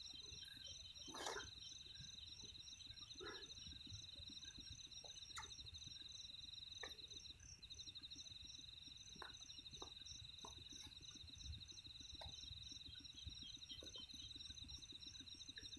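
Night insects calling in a rice field: a steady high, fast-pulsed trill that breaks off briefly about halfway through, with a second higher pulsing call alongside. Faint scattered clicks and rustles of handling sit underneath.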